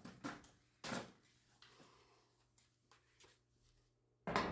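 Quiet shop with a few short knocks and rustles of handling, and a louder burst of noise near the end.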